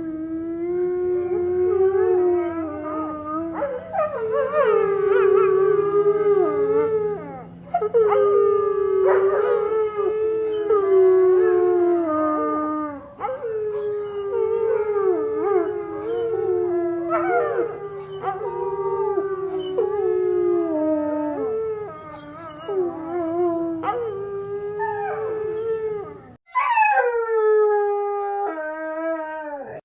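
A dog howling: a run of long, drawn-out howls that waver up and down in pitch, each held for several seconds with short breaks between them.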